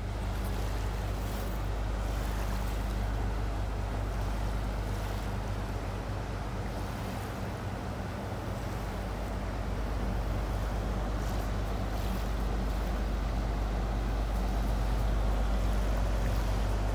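Steady low engine drone of a large ferry passing close by, with an even hiss over it, growing a little louder toward the end.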